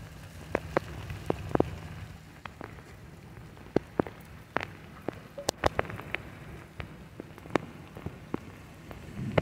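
Steady rain falling on flooded pavement and standing water, with irregular sharp taps of individual drops scattered through it.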